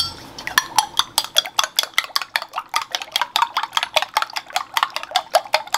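Metal spoon beating raw eggs in a ceramic bowl, clicking against the bowl about six times a second, starting about half a second in.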